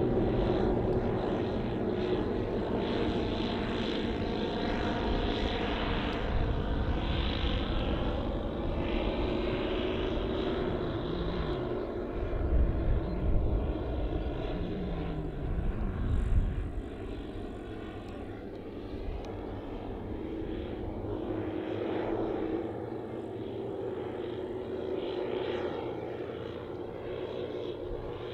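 The twelve 10 cc OS model engines of a large RC Dornier Do X flying boat droning together in flight, the pitch wavering slightly as the model passes. A stretch of heavy low rumbling comes between about twelve and sixteen seconds in, after which the drone is quieter.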